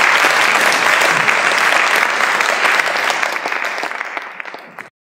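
Audience applauding, a dense patter of many hands clapping. It fades over the last two seconds and cuts off abruptly near the end.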